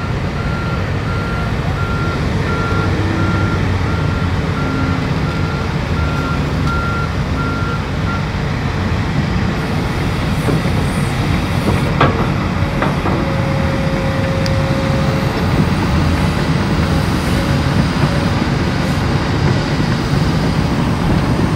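Komatsu PC360LCi hydraulic excavator's diesel engine running under load as it works dirt, with a backup alarm beeping steadily, about one and a half beeps a second, for the first eight seconds. Two metallic knocks come about halfway through.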